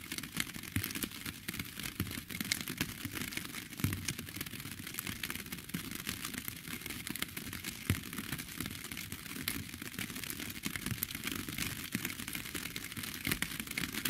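Steady rain: an even hiss with a dense scatter of sharp ticks from individual drops striking.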